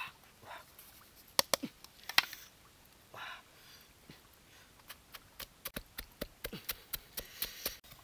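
Wooden pestle pounding in a stone mortar: a quick run of sharp knocks, about three or four a second, through the second half. Before it, a few louder single clacks.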